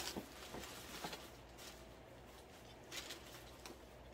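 Soft rustling and crinkling as the stuffing is pulled out of a handbag, with short louder rustles near the start and about three seconds in.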